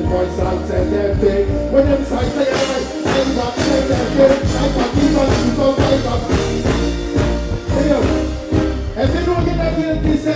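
Live reggae music over a stage sound system: a male singer singing into a microphone over a band or backing track with a steady heavy bass line and a regular drum beat.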